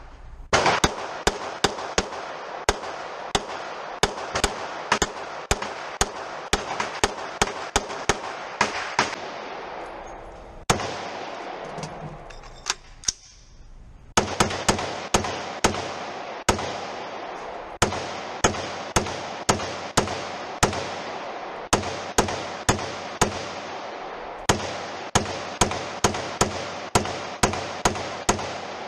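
Gunfire on a range: a long string of single shots fired in quick succession, about two a second. The shots stop for about three seconds midway and then carry on.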